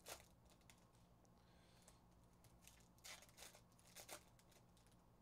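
Faint crinkling and tearing of a foil trading-card pack being torn open by hand: a crackle right at the start, then a small cluster of crackles about three to four seconds in, over a low steady room hum.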